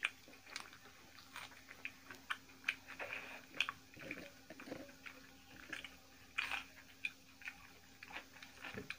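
Two people eating rice and curry with their hands: soft, wet chewing and lip smacks in short, irregular clicks. A faint, steady hum runs underneath.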